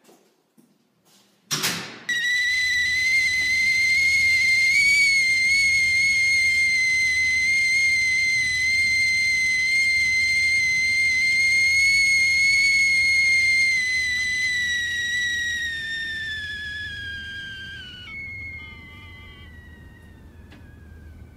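A sharp hit, then a loud, steady, high-pitched whistling tone with overtones that holds for over ten seconds, then sags slightly in pitch and fades, breaking into fainter falling tones near the end.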